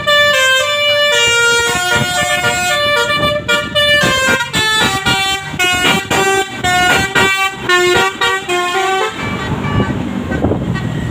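Basuri telolet bus horn playing a quick tune of short, changing notes, stopping about nine seconds in.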